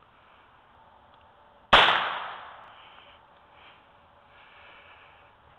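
A single shot from a Heritage Rough Rider .22 LR single-action revolver with a 6-inch barrel, firing Federal bulk-pack ammunition: one sharp crack about two seconds in that dies away over about a second.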